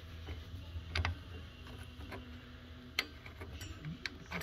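Light metallic clicks and taps of bolts and a mounting bracket being handled and fitted by hand, with sharper clicks about a second in and about three seconds in.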